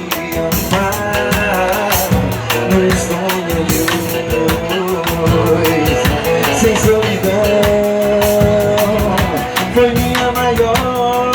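Music with a steady percussion beat and a pitched melody line over it.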